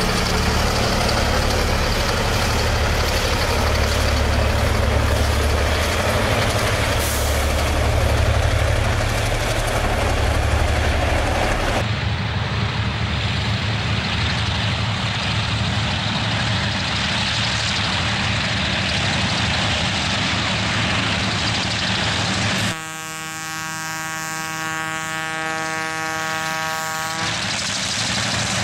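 Diesel freight locomotive engine running heavily as it crosses at low speed, with a deep, steady throb. After a cut there is a steady rumble and hiss. About 23 seconds in, a locomotive air horn sounds one long blast of about four seconds, followed by the rising rumble of the approaching diesel locomotive.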